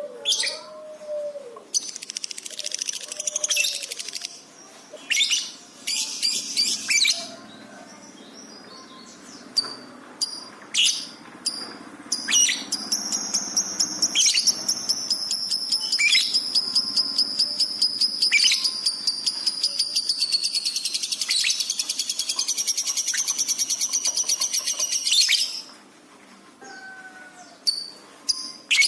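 Lovebird singing: sharp high chirps, then one long fast chattering trill of about thirteen seconds that stops abruptly. This is the extended trill that keepers prize in a lovebird in full song.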